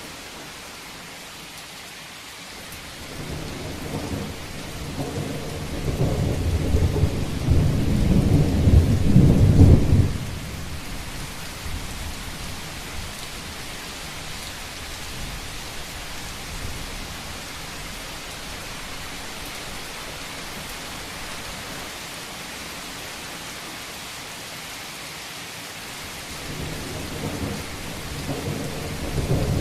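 Steady rain falling on a roof, with rolling thunder. A long, deep rumble builds about three seconds in, swells to its loudest near ten seconds and then falls away quickly. Another rumble starts to build near the end.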